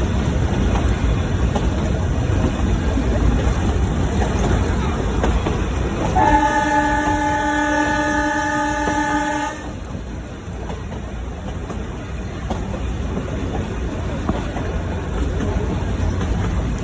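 Nilgiri Mountain Railway toy train running with a steady rumble. About six seconds in, its horn sounds one long blast of about three seconds. After the blast the running noise carries on a little quieter.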